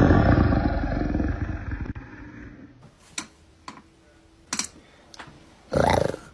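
A big cat's deep roar from the trend audio, dying away over about two seconds. A few faint clicks follow, and near the end comes one short, higher little roar.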